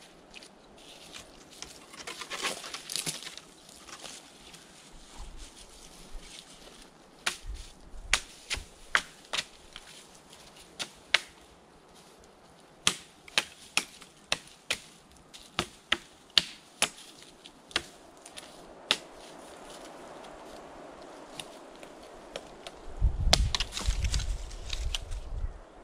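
Sharp woody knocks, irregular and about one or two a second, from a blade chopping at a wooden stick. Near the end a loud, low rustling rumble comes in.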